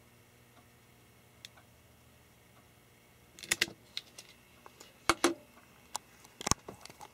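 Faint room tone, then from about halfway a run of sharp clicks and knocks, about seven in all, as objects are handled and set down on a workbench.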